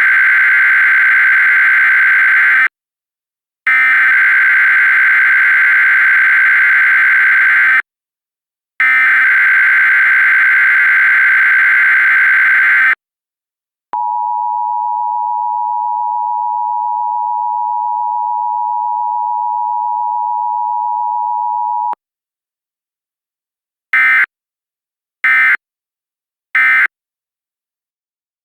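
Emergency Alert System tones: the shrill warbling SAME digital header burst sent three times with short gaps, then the steady two-tone EAS attention signal for about eight seconds. Near the end come three short end-of-message data bursts.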